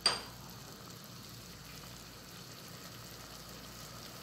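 Chicken hearts simmering in sauce in a pot, a low steady sizzle and bubble just after water with lemon has been added. A single short, sharp clink sounds right at the start.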